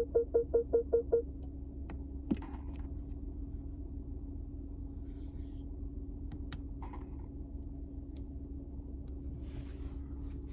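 A car warning chime beeps rapidly, about four beeps a second, and stops a little over a second in. Under it and after it, the BMW F40 118i's engine runs with a steady low hum, broken by a few sharp clicks.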